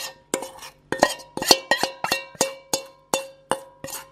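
Metal spoon knocking and scraping inside a metal mixing bowl, scooping out the last of a thick marinade: a quick run of sharp clinks, about three a second, each leaving a short ringing tone from the bowl.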